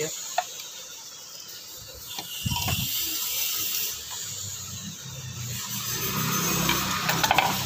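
Kick-starter shaft and gear of a Yamaha Fascino, on its removed CVT cover, worked by hand with ratchet clicks and metal scraping, a cluster of sharp clicks near the end. Its grease has dried out completely.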